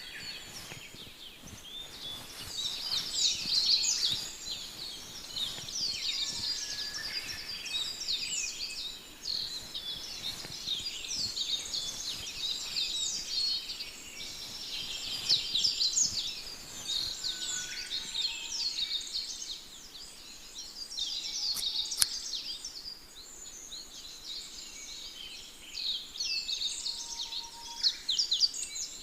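Many small birds chirping and twittering together in a dense, continuous chorus, with one sharp click about two-thirds of the way through.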